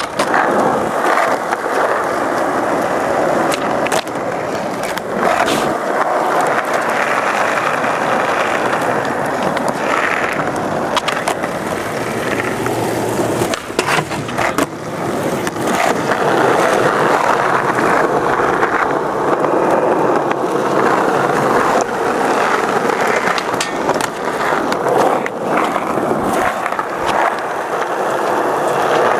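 Skateboard wheels rolling over rough concrete, a steady gritty rumble broken several times by sharp clacks of the board popping, landing and grinding a ledge.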